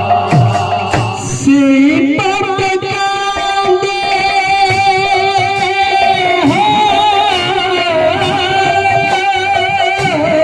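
Devotional kirtan singing: a lead voice through a PA holds long, wavering drawn-out notes from about a second and a half in, over steady hand-drum strokes.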